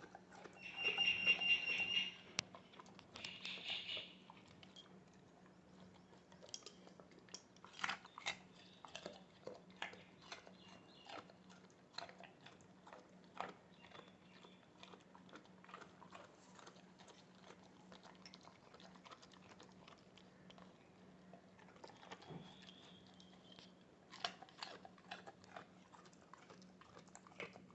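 A Labrador crunching and chewing a whole chilled carrot: irregular crisp bites and chews, some in quick clusters. A short high-pitched tone sounds about a second in, and a faint steady low hum runs underneath.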